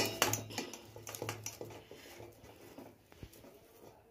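Boiled potato being grated on a steel hand grater over a steel bowl: a sharp metal clink right at the start, then a run of soft, irregular rasping strokes that grow fainter.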